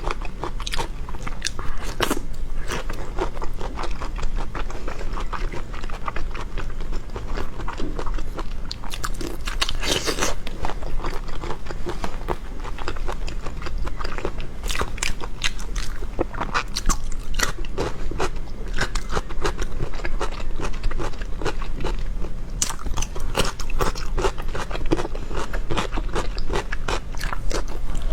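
Close-miked biting and chewing of crunchy food: a steady stream of crisp crunches and wet chewing clicks.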